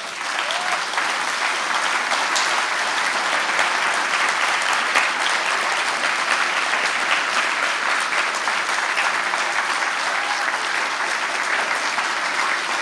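Audience breaking into applause, many people clapping at once, steady and sustained.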